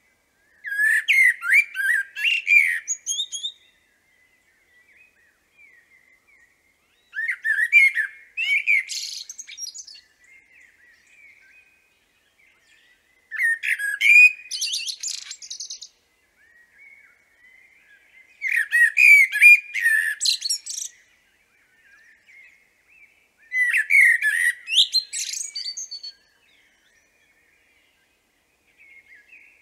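Common blackbird singing: five phrases a few seconds apart, each a low, fluting warble that ends in a high, squeaky twitter.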